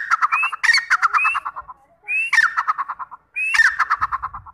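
A teetar partridge calling loudly in repeated phrases. Each phrase is a sharp rising note followed by a fast stuttering run of short notes, about a second long, with four phrases in quick succession.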